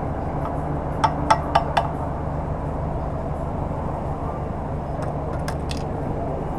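Four sharp metallic clicks about a second in as the gas pump nozzle is worked and lifted out of the motorcycle's filler neck. A few fainter clicks near the end as the key-locked fuel cap is handled. A steady low hum runs underneath.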